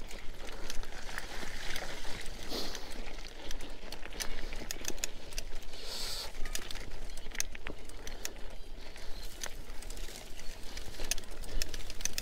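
Mountain bike riding over a rough, wet trail: a steady rolling noise broken by frequent sharp clicks and rattles from the bike.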